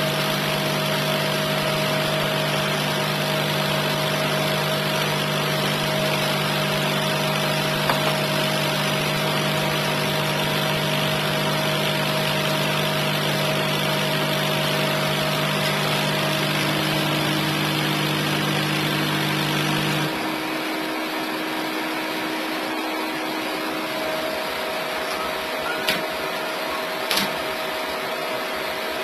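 Homemade CNC laser cutter running as it cuts fiberglass matting: a steady machine hum with a few held tones over an even hiss. About two-thirds of the way through, the low hum cuts off suddenly and the hiss goes on. A couple of light clicks come near the end.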